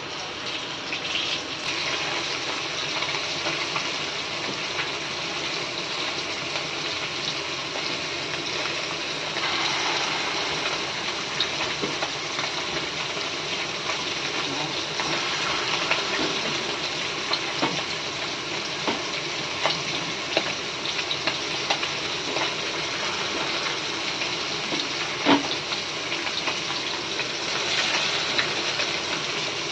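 Fritters frying in hot oil: a steady sizzle with many small crackles and pops. One sharp knock about 25 seconds in.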